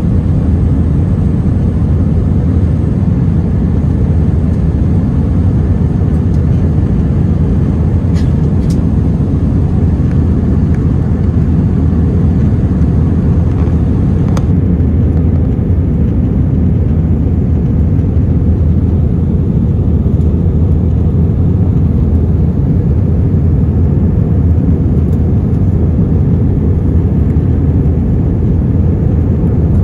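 Steady low roar of an Airbus A320's engines and rushing air, heard from inside the cabin during the climb.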